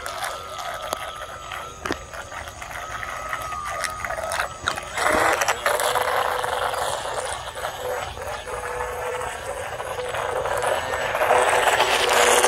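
Small electric RC speedboat's motor and propeller whining as it runs across a pool, with water hissing in its wake. The whine wavers in pitch with the throttle, then about five seconds in it turns louder and lower.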